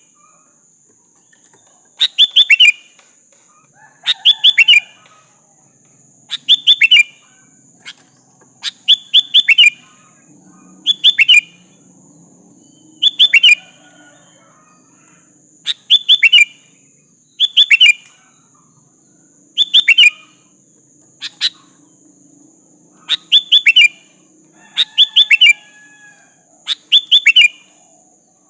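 Sooty-headed bulbul (kutilang) calling: short bursts of a few quick falling notes, repeated about every two seconds, over a steady high hiss.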